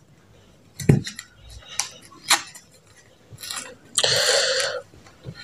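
Paper being peeled and torn from the sealed flap of a paper credit-card mailer. There is a soft knock about a second in and a few light clicks and rustles, then a longer tearing rip about four seconds in.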